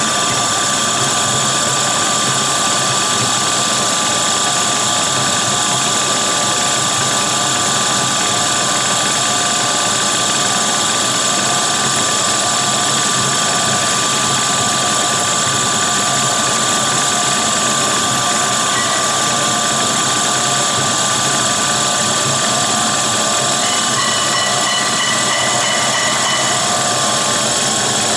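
Single-screw fish and pet feed extruder running: a loud, steady machine drone with a constant high whine over a broad hiss.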